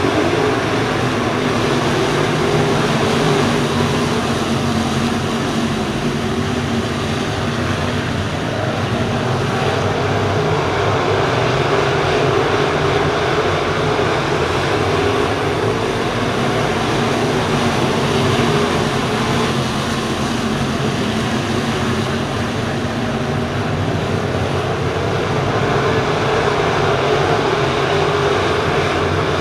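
A field of crate late model dirt-track race cars running laps together, their crate V8 engines blending into one loud, steady drone.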